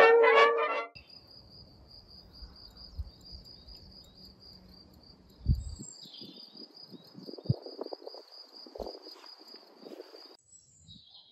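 A steady, high insect trill running unbroken for about nine seconds over faint low rumble, with a couple of low thumps partway through; it opens on the tail of brass music and cuts off abruptly near the end.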